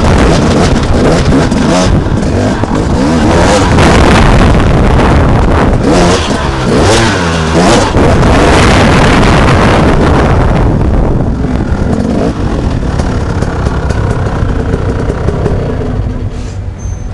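Enduro motorcycle engine, heard up close from the rider's helmet camera, revving hard with the pitch rising and falling under the throttle. After about ten seconds it drops to a quieter, steadier run.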